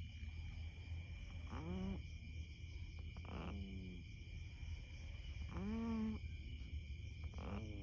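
A sleeping cat snoring: four short, pitched nasal snores, one about every two seconds, each rising and then falling in pitch.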